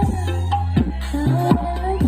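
Loud remixed dance music played through a sound system, with heavy held bass notes that change in a steady beat and a wavering lead melody above.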